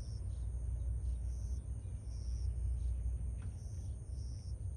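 Outdoor ambience: a steady low rumble, with insects chirping in short high bursts about once a second over a faint steady high whine.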